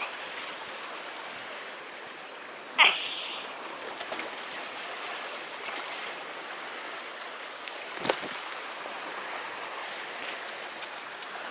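Sea waves washing and sloshing against a concrete tetrapod breakwater, a steady wash of water. About three seconds in there is one brief, loud, high-pitched sound, and about eight seconds in a short knock.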